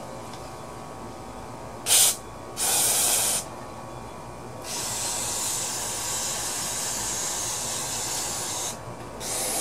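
Aerosol carburetor cleaner hissing from the can in bursts onto a small-engine carburetor, dissolving varnish around a jammed float pin: a short blast about two seconds in, another just under a second long, then a longer, quieter spray of about four seconds, and a fourth starting near the end.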